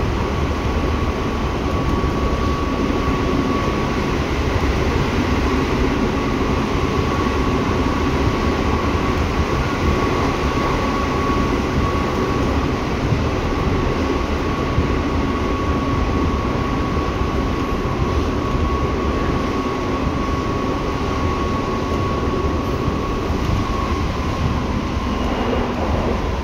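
Seibu 6000 series electric train with Hitachi GTO-VVVF traction equipment running, heard from inside the car: a steady rumble of wheels and running gear with a steady high whine over it.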